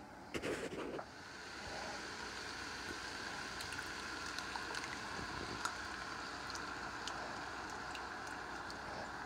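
A glass pan lid clatters briefly just under a second in, then food sizzles steadily in a hot frying pan, with small crackles, as tomato sauce is poured over fried potatoes and meat.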